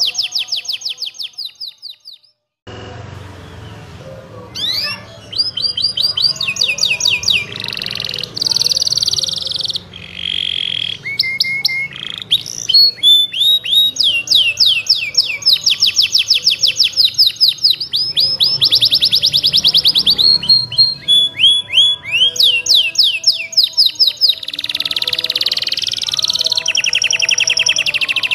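Domestic canary singing long, rapid trills of repeated high chirping notes, with sweeping phrases between them. The song fades out about two seconds in and breaks off briefly before resuming.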